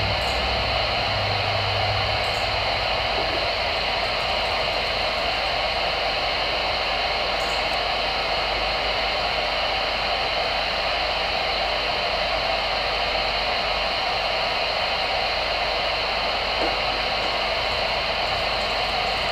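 CB radio receiver hissing steady static through its speaker, with no station coming through on the channel.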